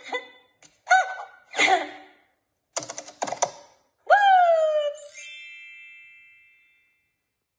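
Cartoon sound effects from an animated clip: a couple of short pitched squeaks and a quick run of clicks, then a tone sliding downward and a chime that rings out and fades over about two seconds.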